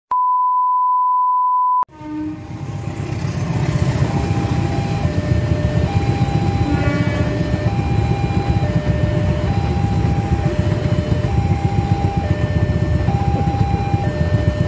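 A steady test-card beep for about two seconds that cuts off abruptly. Then a railway level-crossing warning alarm sounds a repeating two-note chime, a higher note then a lower one about every two seconds, over the low rumble of a passenger train passing through the crossing. A brief horn toot comes about seven seconds in.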